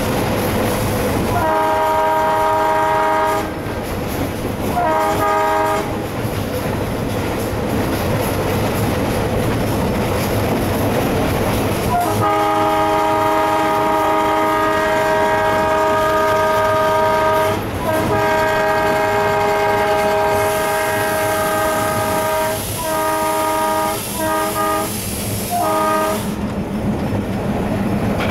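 Alco WDM3D diesel locomotive's air horn sounding, heard inside the cab over the running engine and rail clatter. Two short blasts come first, then about 12 seconds in a long blast that goes on for several seconds and breaks into a series of shorter blasts near the end.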